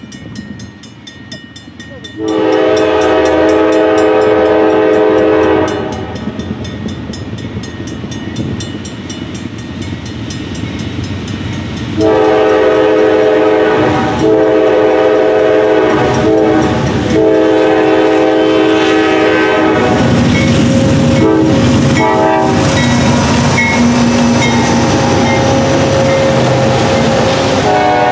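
Diesel freight locomotive's multi-note air horn blowing for a grade crossing as the train approaches: one long blast, a pause, then a string of blasts with short breaks. In the last seconds the locomotive's engine and wheels pass close by with a loud rumble under the horn.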